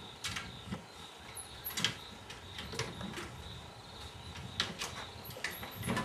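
A honey badger rummaging at a fridge: a few scattered sharp knocks and rattles, like a door or shelves being bumped, over a steady high trill of crickets.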